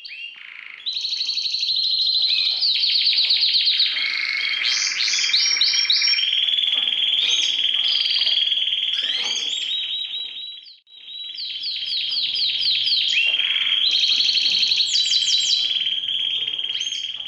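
Gloster canary singing a long song of rapid trills and rolls, in two long stretches with a short pause about eleven seconds in.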